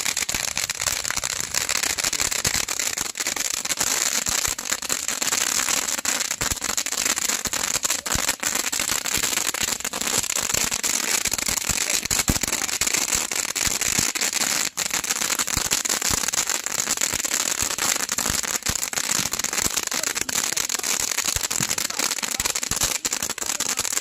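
Handheld bundles of cannon-style multi-shot firework tubes firing without a break: a dense hiss of sparks with rapid pops and crackles throughout.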